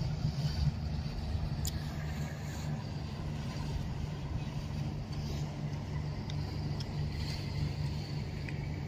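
Steady low engine rumble from ships in the harbour, with a few faint high ticks over it.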